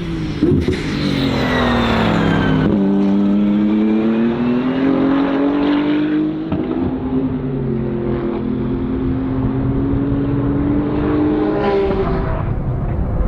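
BMW M4 GT3 race car's twin-turbocharged straight-six at racing speed. The engine note falls over the first few seconds as the car slows, then climbs in two long pulls under acceleration, with an upshift about six seconds in and another near the end.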